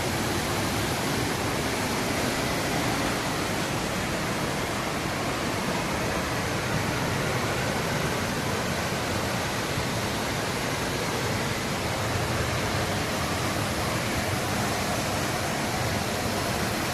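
Huangguoshu Waterfall, a large waterfall, making a steady, even rush of falling water.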